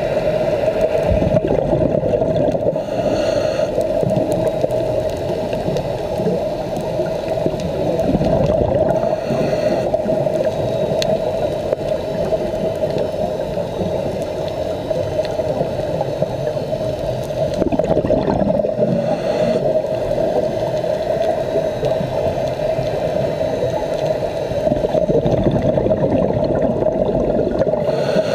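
Underwater sound picked up by a camera on a scuba dive: a steady hum with bubbling and gurgling, swelling every several seconds in the rhythm of a diver's regulator breathing and exhaust bubbles.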